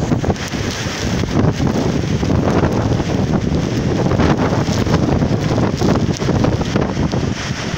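Storm wind buffeting the microphone in uneven gusts, over heavy surf breaking against the sea wall.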